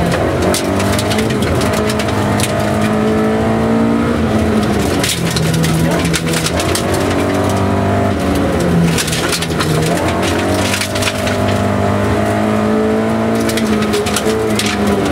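Rally car engine heard from inside the cabin, revving hard and climbing in pitch, then dropping sharply at each gear change, several times over. Loose gravel clatters against the underside in spells.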